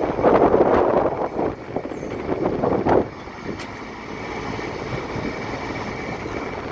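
Kubota B26 tractor-loader-backhoe's diesel engine running while the backhoe boom and bucket are worked by hydraulics. It is louder and uneven for about the first three seconds, then settles to a steadier, quieter run.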